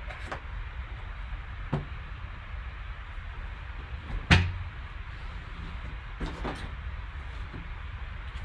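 A few short knocks and clicks from trading-card packs and their box being handled on a table, over a steady low hum. The loudest knock comes about four seconds in.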